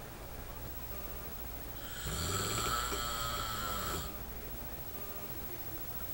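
A man snoring heavily in his sleep: one loud, long snore about two seconds in, lasting about two seconds, with quieter breathing before and after it.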